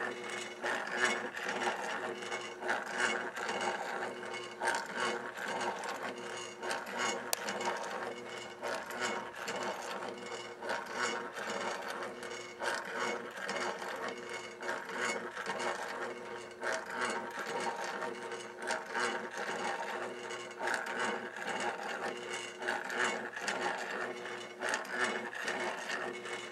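Motorised wooden beetle motion display running: a steady motor hum under continuous, irregular clicking and clattering of its gears and moving wooden parts.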